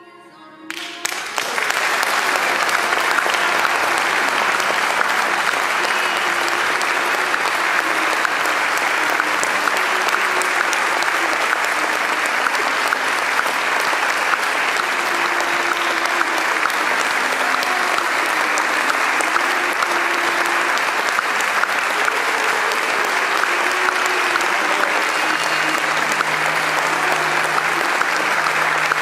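Theatre audience applauding. The clapping breaks out about a second in and then holds steady and dense.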